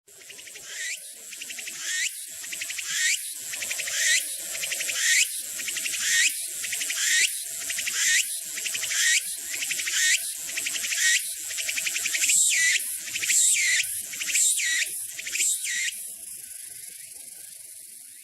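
Cicada singing: a loud buzzing song pulsing in phrases about once a second, the phrases coming quicker near the end, then settling into a steady buzz that fades away.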